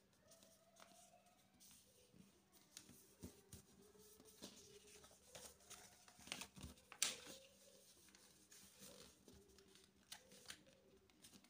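A sheet of A4 printer paper being handled and folded on a wooden table: faint rustles and crinkles as it is pressed and creased, with louder paper crackles a little after six seconds in as the sheet is lifted and turned.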